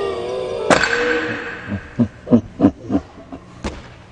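A drawn-out voice-like cry, cut by a sharp thud under a second in, then four short pitched bursts about a third of a second apart and another sharp knock near the end.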